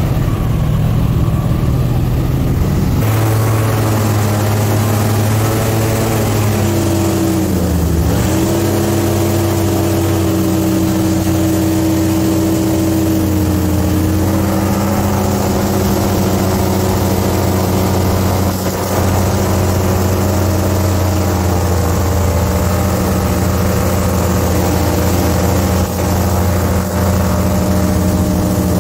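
Airboat engine and propeller running loud and steady under way. It throttles up about three seconds in, dips briefly in pitch about eight seconds in, then picks up again and holds a steady cruise.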